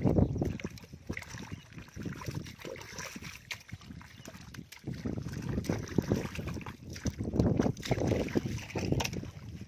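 Bare feet wading through soft mud and shallow muddy water, squelching and sloshing in irregular surges, with a plastic pipe prodding and scraping the mud.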